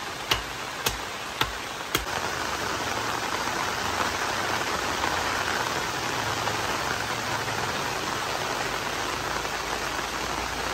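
Heavy rain falling steadily, a dense even hiss. For the first two seconds sharp taps sound about twice a second over it, then the rain goes on alone.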